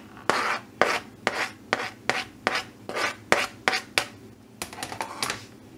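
A spoon scraping repeatedly across a plastic cutting board, pushing chopped onions off into a container of diced potatoes. It makes short rasping strokes, about four a second, and a few more near the end before it stops.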